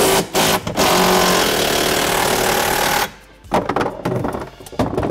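Cordless impact driver with a 13 mm socket hammering out a seat mounting bolt: a short burst, then a run of about two seconds that stops abruptly. A few light clicks and knocks follow.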